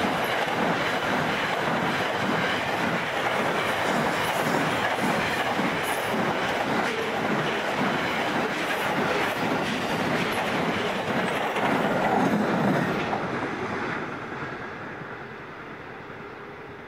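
Freight wagons of a long mixed freight train rolling past, the wheels clacking in an even rhythm over the rails; the sound fades away after the last wagon goes by, about 13 seconds in.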